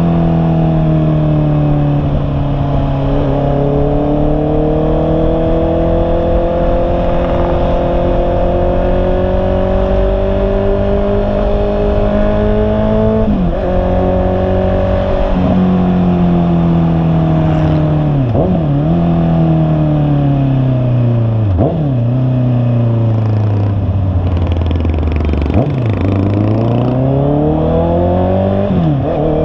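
Honda CB650R's inline-four engine running under way, its pitch rising and falling with the throttle. In the second half there are several quick dips in revs, like gear changes, and the revs sink for a long stretch before climbing again near the end.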